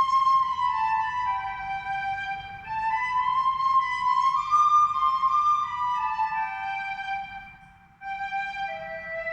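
Music: a slow melody played as a single line on one high-pitched instrument, moving in held notes that step up and down. The melody breaks off briefly about eight seconds in, then goes on.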